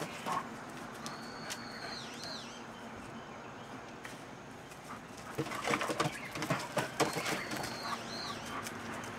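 Borzois play-fighting: a short scuffle right at the start and a louder burst of quick, sharp dog sounds between about five and seven seconds in. A bird gives a high, drawn-out whistle ending in a dip twice in the background.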